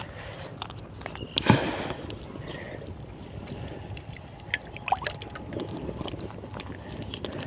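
Cooking oil poured from a plastic pouch into a steel kadai over a wood fire, a steady pour with scattered small crackles from the burning sticks. A brief thump and rush about one and a half seconds in.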